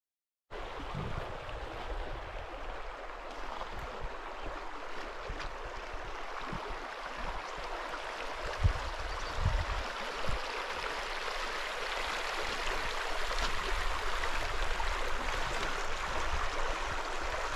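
Steady rushing of a stream, starting suddenly about half a second in, with a few low thumps on the microphone a little past halfway.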